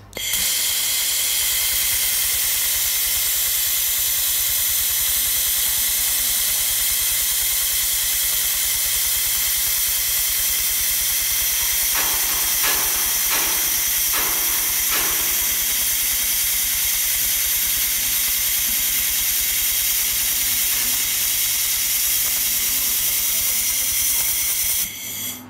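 1500 W handheld fiber laser welder at work: a loud, steady hiss over a low hum, with a few short crackles about halfway through as sparks fly from the weld. The sound cuts off suddenly near the end.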